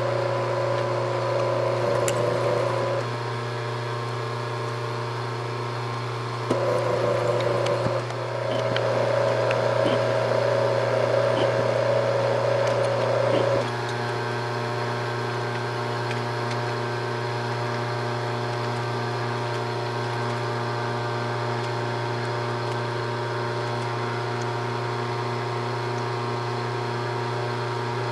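Milling machine running steadily with a hum. A louder, higher whine comes over it in the first half, breaks off briefly twice, and stops about halfway through.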